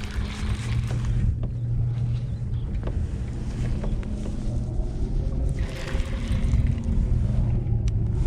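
Steady low rumble of water and wind moving past a Hobie Pro Angler 14 kayak and its camera microphone, with a few faint clicks and a gust of hiss about six seconds in.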